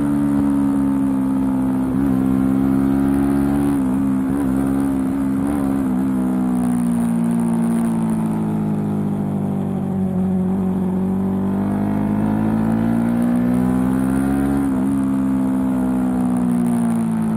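Suzuki sport motorcycle's engine under way, heard from on board. The note sinks, wavers quickly a few seconds in, bottoms out near the middle, then climbs as it revs up and drops off again near the end.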